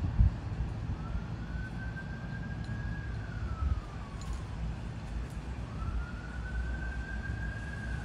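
A distant siren wailing, its single tone rising slowly and then falling away, twice, over a steady low rumble. A low thump comes just at the start.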